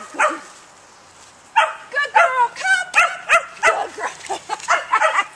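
Border Collie puppy yipping and barking in quick succession, high-pitched short calls that start about a second and a half in after a brief lull.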